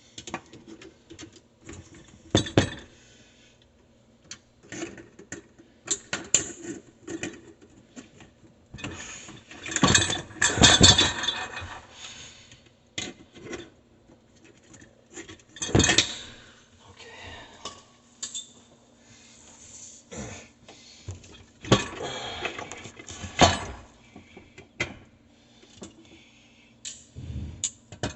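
Intermittent knocks, clicks and metallic clatter of tools and parts being handled during a garbage disposal installation, louder in bursts about ten seconds in, near sixteen seconds and around twenty-two seconds, over a faint steady hum.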